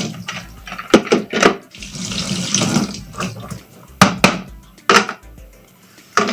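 Kitchen tap running in bursts as a coffee maker's filter basket is rinsed, with several sharp knocks and clatters as the basket is handled.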